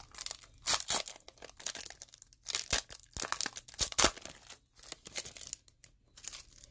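Foil wrapper of a football trading-card pack being torn open and crinkled: irregular crackling rustles, loudest in the first four seconds, then quieter, sparser rustling as the cards are handled.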